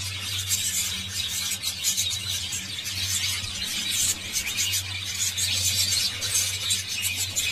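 A mixed flock of budgies and cockatiels chattering and chirping all at once in a dense, continuous high-pitched twitter, over a low steady hum.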